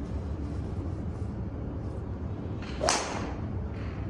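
A golf driver swung at a teed ball: a quick rising swoosh, then the sharp crack of the clubhead striking the ball about three seconds in.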